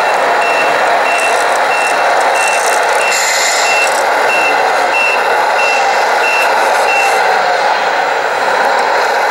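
Reversing alarm from a radio-controlled Scania tipper truck's sound unit: a short high beep repeated about one and a half times a second, stopping about seven seconds in, over a steady noisy hum.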